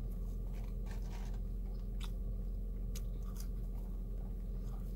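Close-up chewing and biting of chicken nuggets, with scattered faint crunchy clicks over a steady low hum.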